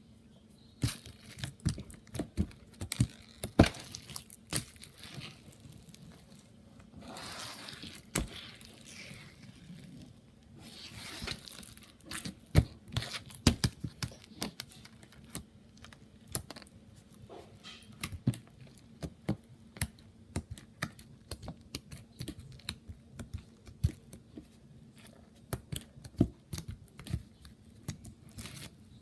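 Slime being squeezed and stretched by hand: irregular sticky crackles and pops, with a couple of longer tearing stretches as it is pulled apart.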